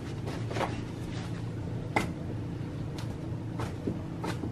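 Clear plastic wrap crinkling, with a few short sharp crackles, the strongest about two seconds in, over a steady low hum.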